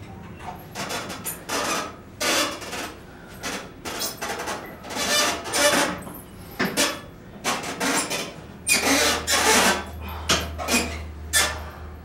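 Irregular rasping and rubbing noises from a person shifting on a padded home-gym bench and working its cable machine, in short bursts about every half second to second.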